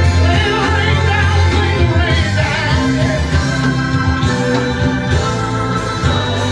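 Gospel song with a singer's voice over a heavy, sustained bass line, loud and continuous, playing for praise dancing.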